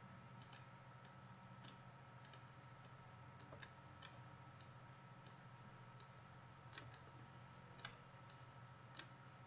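Near silence with faint, irregular clicks of a computer mouse, some in quick pairs, over a low steady hum.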